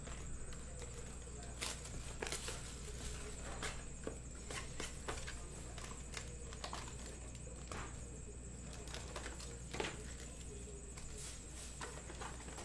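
A cardboard trading-card hobby box of Panini Select baseball being opened and its packs pulled out and stacked, with irregular light taps, clicks and rustles of cardboard and packs being handled. A steady low hum runs underneath.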